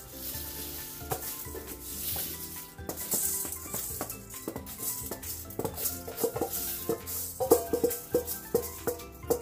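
Dry mung beans poured from a stainless steel bowl into a pan of broth, rattling in the bowl as a quick run of clicks that grows busier near the end, over background music.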